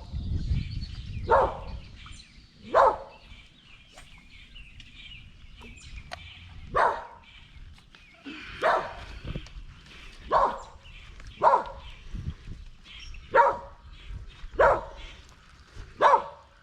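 A dog barking repeatedly, about nine single barks spaced roughly one to two seconds apart.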